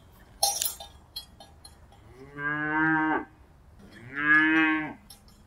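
A cow mooing twice, two drawn-out calls about a second long each, the second one louder. A brief noisy burst comes about half a second in, before the calls.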